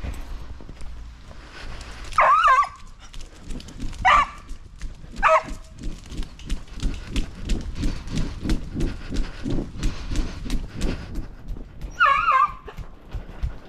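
A dog giving four short, high, wavering whines or yelps, one about two seconds in, two more a few seconds later and the last near the end. A steady soft rhythm of about two beats a second runs under them.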